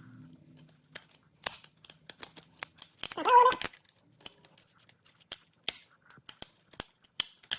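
Screwdriver prying at a door-handle key lock cylinder and its metal retaining clip: a string of small metallic clicks and scrapes, with one brief louder squeak about three seconds in.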